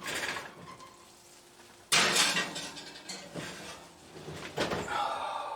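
Kitchen handling noise: a sharp clatter of cookware about two seconds in that rings away, with smaller knocks around it and a short vocal sound near the end.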